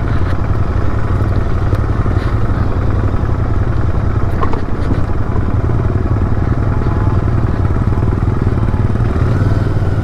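Royal Enfield 650 parallel-twin motorcycle engine running steadily while the bike is ridden along.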